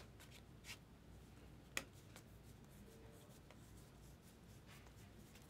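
Near silence with faint rustling of trading cards being handled and slid through the hands, and one light tick a little under two seconds in.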